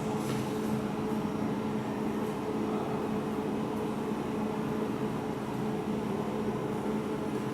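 Laser welding machine running with its water pump filling the cooling system with purified water: a steady mechanical hum.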